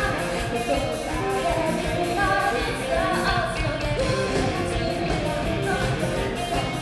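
Rock song played by a band, with a sung lead vocal over guitar and a steady drum beat.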